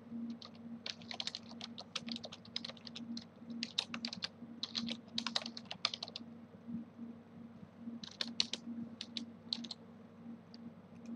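Computer keyboard typing in quick runs of keystrokes for about six seconds, then a shorter run of clicks a little after eight seconds in, over a faint low hum.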